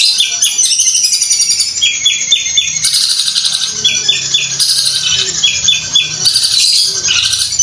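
Long-tailed shrike (cendet, Madura strain) singing without pause: a loud, dense, high-pitched chatter broken by repeated quick runs of three or four sharp notes. This is the rapid rattling style that bird keepers liken to a sewing machine.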